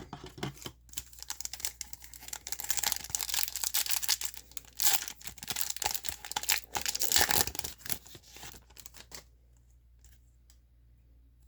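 A trading card pack's plastic wrapper being torn open and crinkled by hand, a dense irregular crackling for about eight seconds that stops near the end.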